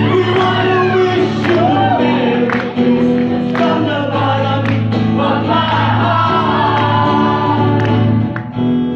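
A man singing into a microphone while strumming an acoustic guitar, with steady strums about once a second under the sung melody.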